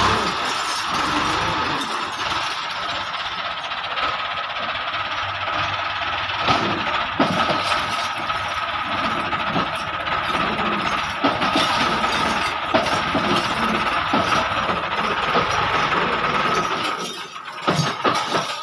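Massey Ferguson 285 tractor's four-cylinder diesel engine running hard under heavy load, straining to haul a fully loaded sand trolley out of soft sand. The sound is a loud steady drone with a constant whine, and it eases off about a second and a half before the end.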